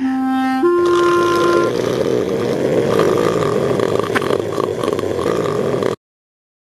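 Two held oboe notes, the second higher, lasting about a second and a half. Then a cartoon sound effect of someone snoring hard, a dense rattling snore that runs about four seconds and cuts off suddenly.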